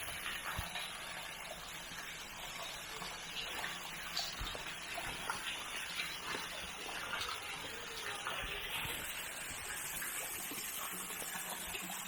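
Steady rush of flowing water, an even unbroken wash of sound, with a few faint knocks now and then.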